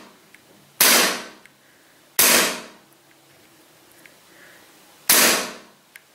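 APS ACP Glock-type CO2 gas-blowback airsoft pistol firing three shots: one about a second in, the next about a second and a half later, and the last about three seconds after that. Each shot is a sharp crack that fades over about half a second.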